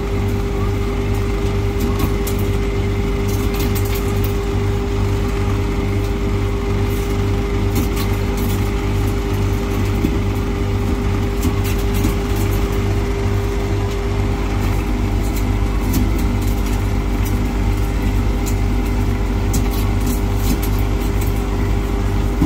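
Penguin-brand ice maker running: a steady mechanical hum with a regular low throb several times a second, and water splashing over its cylindrical evaporator.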